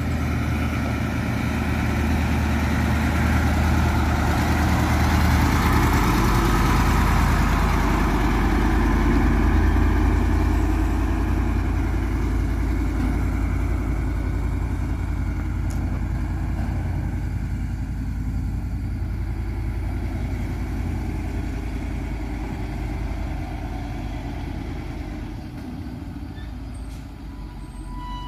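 Caterpillar 3208 V8 diesel engine of a Ford 8000 truck idling steadily; loudest in the first third, then gradually fading.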